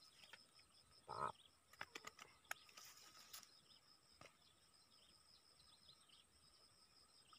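Faint, steady high-pitched chirping of insects in grassland, with a brief soft noise about a second in and a few light clicks soon after.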